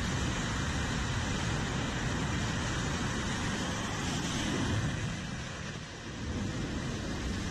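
Jet engine noise from an F/A-18 Super Hornet on a carrier's catapult, a loud steady rush that dips briefly about six seconds in and then rises again.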